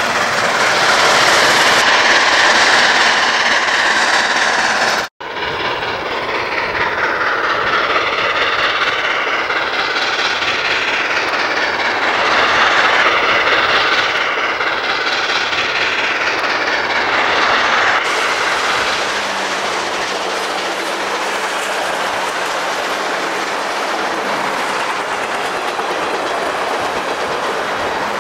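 A train running steadily on the rails, a loud continuous rumble and clatter, broken by a brief full dropout about five seconds in.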